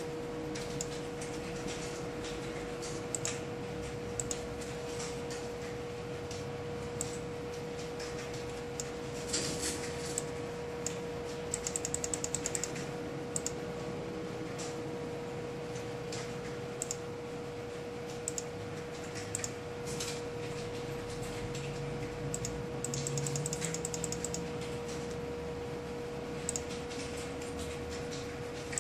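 Computer clicking: scattered single clicks, with two short quick runs of clicks about twelve and twenty-three seconds in, over a steady electrical hum.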